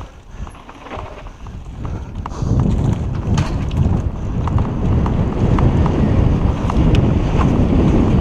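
Mountain bike descending a dirt singletrack: wind buffeting the camera microphone and tyres rumbling over the ground, with frequent sharp clicks and rattles from the bike. Quieter for the first two seconds or so, then louder from about two and a half seconds in.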